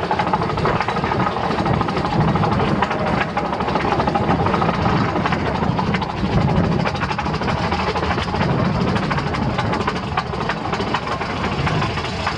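Steady low rumble of a running vehicle, with a busy background haze of small sounds over it.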